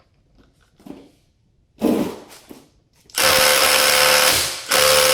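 Milwaukee M18 Fuel cordless impact driver hammering at full power on a lug nut torqued to about 84 ft-lbs, trying to break it loose. It runs in two long bursts with a brief pause between, preceded by a short knock about two seconds in.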